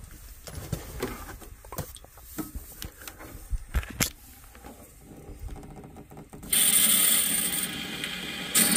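Scattered light clicks and knocks of small parts and fittings being handled, then loud music cuts in suddenly about six and a half seconds in.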